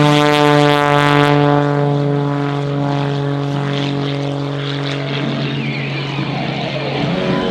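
Aerobatic stunt plane's piston engine and propeller running hard on a steady, buzzing pitch, fading somewhat after about five seconds.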